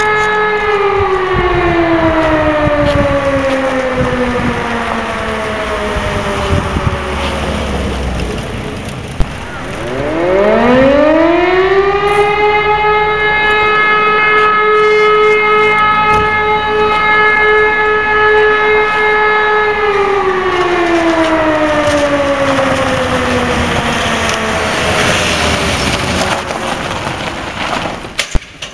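Fire station siren of a volunteer fire brigade sounding a call-out. It winds down from its steady tone, then about ten seconds in spins up again to a steady wail held for about eight seconds, and winds down once more near the end.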